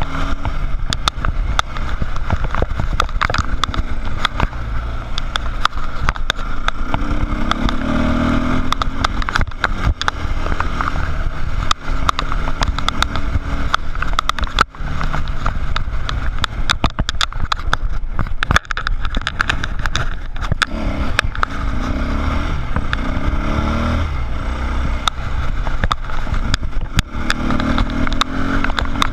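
Dirt bike engine heard from on the bike while being ridden along a rough trail, its pitch rising and falling as the rider works the throttle. Frequent sharp knocks and clatter come through as the bike goes over the bumpy ground.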